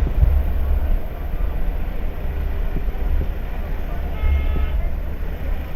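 Motorcycle riding through city traffic, its engine running under a heavy low wind rumble on the microphone, with a short higher-pitched tone about four seconds in.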